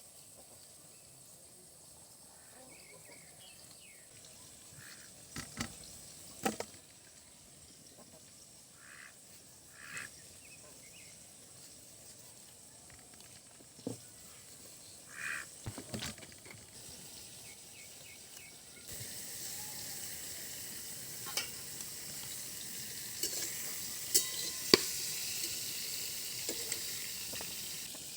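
Scattered sharp clicks and taps as onions are cut, then, about two-thirds through, a steady sizzle of ridge gourd slices frying in mustard oil sets in, with a few clinks over it.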